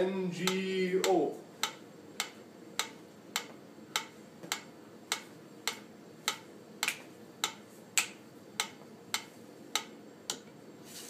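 Metronome-style click track ticking steadily at about 100 beats per minute, sharp single clicks a little over half a second apart.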